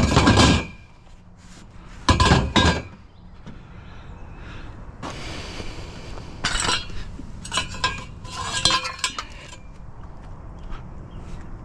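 Steel trampoline frame tubes clanking and clinking against each other as they are handled. There are two loud clanks in the first three seconds, then a run of lighter clinks and rattles later on.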